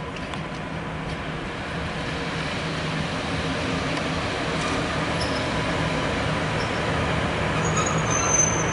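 ET22 six-axle electric freight locomotive running light at low speed, a steady rumble and hum growing louder as it approaches. A high wheel squeal starts near the end.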